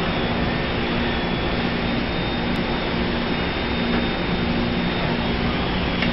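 Steady drone of a running robotic machining cell: CNC machine tools and a robot arm at work, with a low hum that comes and goes, a faint high whine, and a few light clicks.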